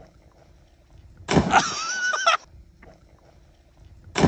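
A person's loud yell, held for about a second and starting abruptly about a second in, as they let go of a rope swing over the lake.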